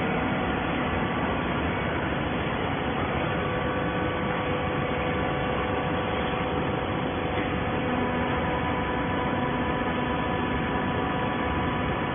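Automatic horizontal baler running: a steady mechanical hum with several steady whining tones over it. A couple of the tones change about eight seconds in.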